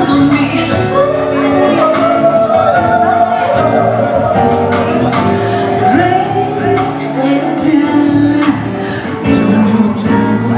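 Live band music with singing: a wavering melody line held over sustained chords.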